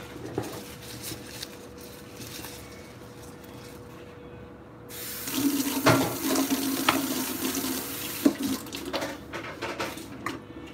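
Water running from a tap, turned on abruptly about halfway through and running for about three and a half seconds before it is shut off. A few light clinks sound over the running water.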